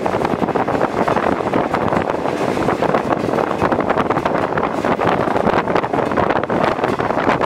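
Wind buffeting the microphone over the steady running noise of a passenger train's carriages on the track, with constant fine rattling, heard from an open window of the moving train.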